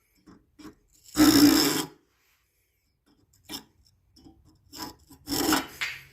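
Hand saw cutting through a wooden handle, worked one-handed in a few separate, uneven rasping strokes, the loudest about a second in and several shorter ones near the end.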